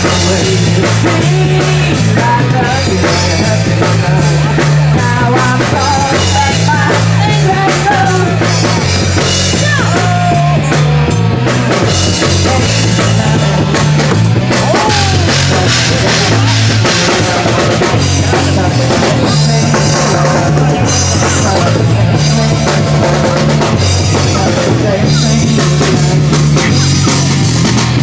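Loud hard rock music with a driving drum beat and a repeating bass line.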